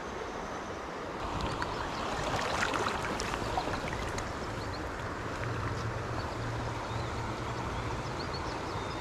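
Shallow creek water running over a riffle: a steady rushing, a little louder for a couple of seconds near the start.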